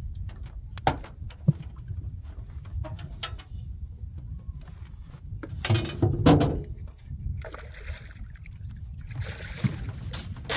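Water splashing and knocks against a small fishing boat, over a steady low rumble, with the loudest splashing about six seconds in.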